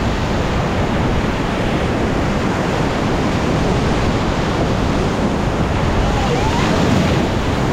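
Whitewater rapid on the Ganges rushing loudly and steadily around an inflatable raft.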